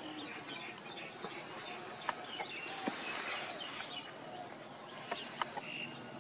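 Small birds chirping in scattered short calls over an open-air background hiss, with a few sharp clicks about two, three and five and a half seconds in.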